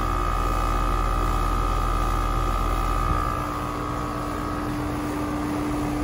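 2023 Carrier Sentry 15 two-ton heat pump's outdoor unit running steadily in heat mode, its condenser fan spinning. A steady whine fades about halfway, while a lower hum grows stronger near the end.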